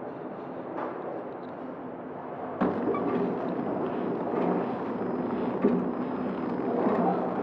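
Horizontal flow-wrapping machine running: a steady mechanical hum with scattered clicks and knocks, getting suddenly louder about two and a half seconds in.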